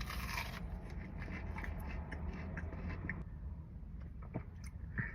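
Quiet eating noises: chewing with small crunches and clicks, and brief scrapes of food or container being handled.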